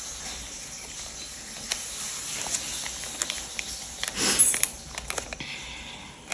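Small clear plastic bag crinkling and rustling in the fingers as it is picked at and worked open, with small clicks and a louder rustle about four seconds in, over a steady faint hiss.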